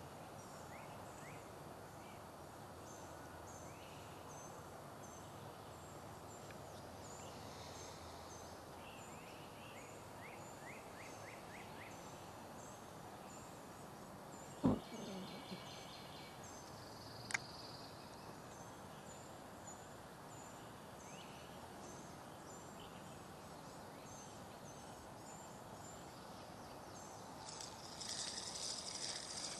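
Quiet outdoor ambience: a steady hiss with scattered bird chirps and calls. A single knock comes about halfway through and a sharp click a few seconds later. Near the end a louder, high hissing rustle sets in.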